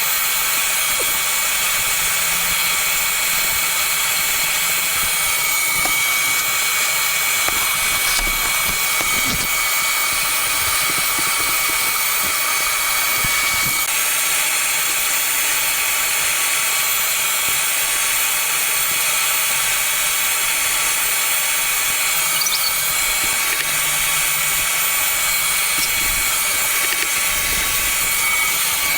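A small electric power tool running steadily, with a dense high hiss and a thin high whine, during cleaning of a laptop's cooling fan.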